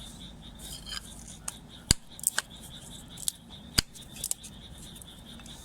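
Wood fire crackling, with irregular sharp pops and snaps and two louder cracks about two and four seconds in, as damp firewood catches.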